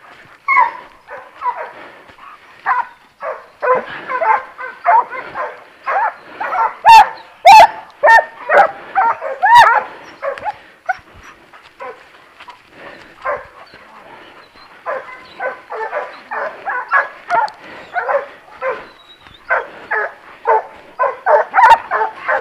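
Hunting dogs giving tongue on a wild boar's trail: a rapid, unbroken run of short barks and yelps, several a second. The barking is loudest, with a few sharp cracks, about a third of the way through, eases off in the middle and picks up again near the end.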